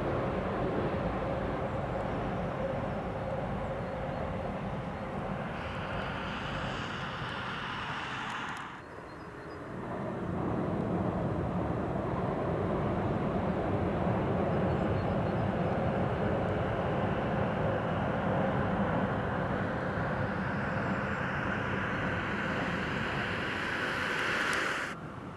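Electric multiple-unit trains rolling across a long railway viaduct, a steady rumble and rush of noise. A cut about nine seconds in brings a second crossing, a pair of coupled DB Class 423 S-Bahn units.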